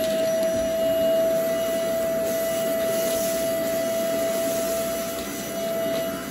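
Bissell Zing canister vacuum running at full speed, a steady motor noise with a high whine, as its hose wand is drawn over spilled dry debris on carpet. The noise dips slightly near the end.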